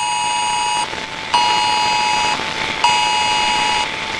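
Emergency alert attention tone: a harsh two-pitch electronic tone sounding in a fixed cadence. A long tone ends about a second in, then one-second beeps follow with half-second gaps, the third starting near the end. This is the on-off pattern of the phone emergency alert signal that opens an emergency broadcast.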